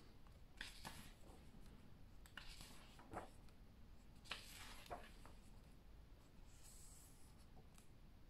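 Faint rustling and swishing of pages being turned by hand in a large hardcover book, several page turns a second or two apart.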